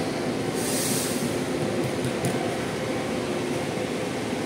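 Large diesel bus engine running close by with a steady deep rumble. A short hiss comes about half a second in.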